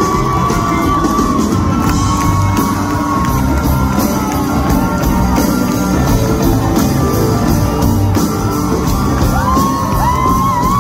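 Live pop-rock band playing loudly through a concert PA, heard from within the audience: guitars and long held sung notes, with fans whooping.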